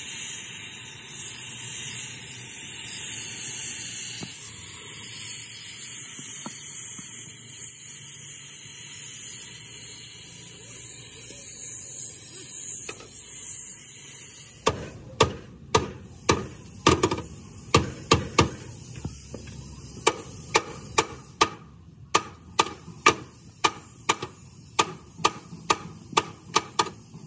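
Oxy-fuel cutting torch hissing steadily as it cuts through a steel truck chassis rail. About halfway through the hissing gives way to a long run of sharp hammer blows on steel, about two to three a second.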